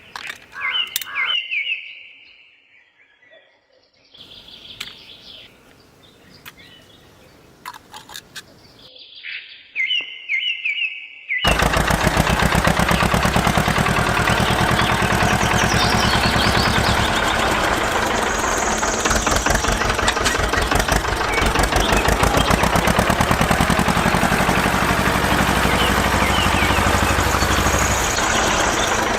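A few short high bird-like chirps with quiet gaps and clicks, then about eleven seconds in a loud steady machine noise with a fast fine rattle starts suddenly and keeps running.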